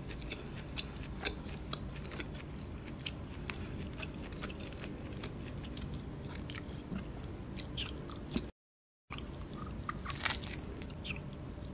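Close-miked mouth sounds of a person chewing roast lamb leg meat: small wet clicks and smacks scattered throughout, a little busier near the end as a fresh piece goes in. The sound cuts out to silence for about half a second a little after eight seconds in.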